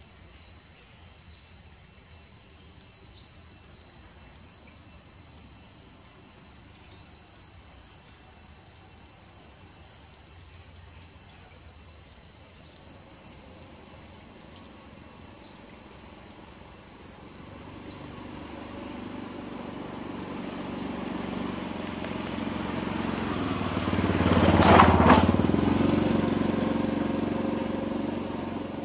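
Loud, steady, high-pitched drone of insects in the tree canopy. About two-thirds of the way in, the rumble of a passing vehicle swells, peaks near the end and fades away.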